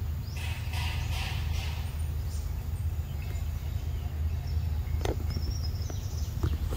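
A steady low rumble runs under everything. A few sharp clicks come about five seconds in and again near the end as a macaque picks at a pile of soft yellow fruit with her hands.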